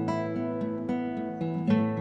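Background music of a plucked acoustic guitar, a new note or chord every half second or so, each left ringing.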